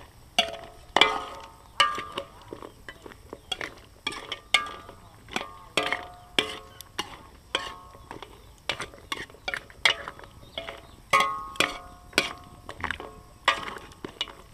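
Metal ladle stirring meat in a wok, knocking and scraping against the pan at an uneven pace of about one or two knocks a second, each knock ringing briefly.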